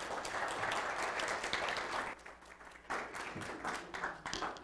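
Audience applauding in a lecture hall: dense clapping for about two seconds, which briefly drops off and then carries on more thinly before fading.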